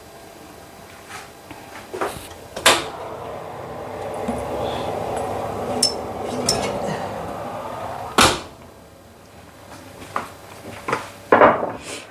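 Kitchen handling sounds: a few clicks and a sharp knock, then a steady rushing sound for about five seconds that stops with a loud knock.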